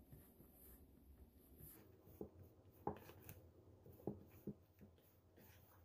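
Faint rubbing and squishing of a hand kneading a crumbly glutinous rice flour and mashed sweet potato dough in a plastic bowl, with a few soft taps against the bowl in the second half.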